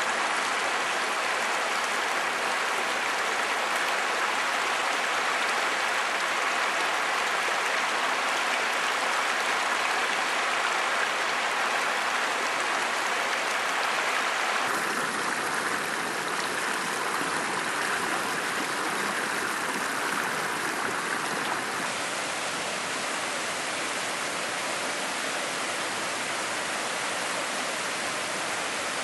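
Shallow river water rushing over smooth bedrock in a steady hiss. Its tone shifts abruptly about halfway through and again a few seconds later.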